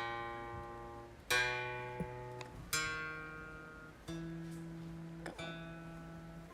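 Background music: slow acoustic guitar chords, struck about every second and a half and each left to ring and fade.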